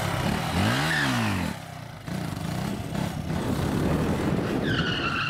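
Yamaha R15 sport motorcycle's single-cylinder engine, revved up and back down about a second in, then running on steadily while the bike is ridden in a wheelie. A brief high squeal near the end.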